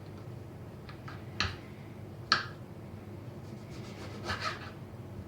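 Knife slicing a lemon on a cutting board: a few sharp taps of the blade on the board, the loudest about two seconds in, then a short rasping sawing stroke through the fruit near the end.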